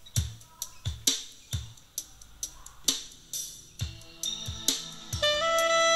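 Music: a drum kit playing sparse, separate bass-drum and cymbal hits, with held instrument notes coming in near the end.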